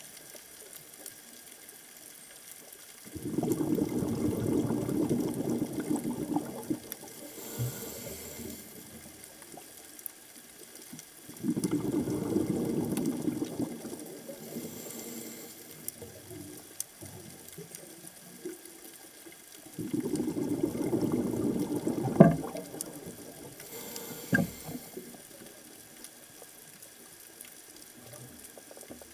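Scuba diver's regulator exhaust bubbling underwater: three bursts of exhaled bubbles about eight seconds apart, each lasting about three seconds, with a faint hiss of inhalation between them.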